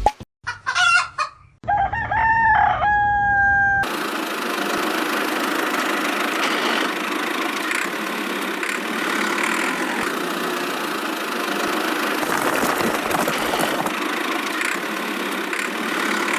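A rooster crows twice, briefly, near the start. A steady rushing noise without a clear pitch then takes over for the rest.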